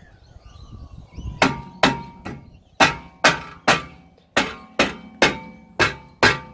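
Soft mallet striking a VE Commodore's rusted-on rear brake rotor around its face, starting about a second and a half in and going at about two blows a second, each blow with a short metallic ring from the disc. The blows are meant to shake the stuck rotor loose from the hub.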